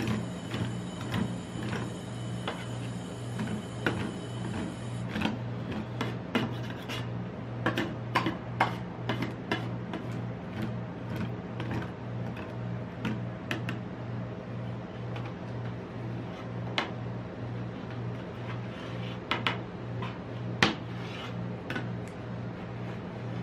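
Metal spatula scraping and tapping on the steel pan of a rolled ice cream cold plate, spreading a thin layer of frozen ice cream and then cutting it into strips, in many quick scrapes and clicks. A steady low hum runs underneath.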